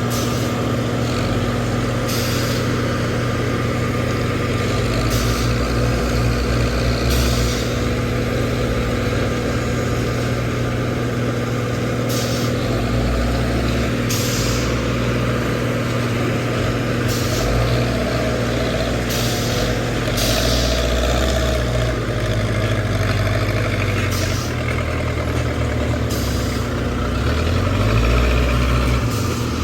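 Backhoe loader's diesel engine running steadily, its low note swelling and easing every few seconds as the load changes. Short bursts of hiss break in about ten times.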